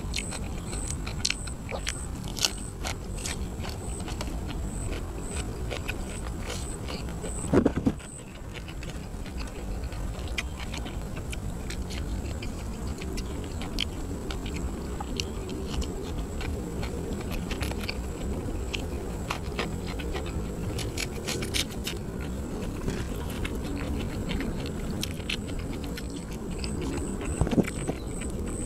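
Close-miked eating sounds: chewing with frequent short wet clicks and smacks, and food being handled by hand, over a steady low rumble.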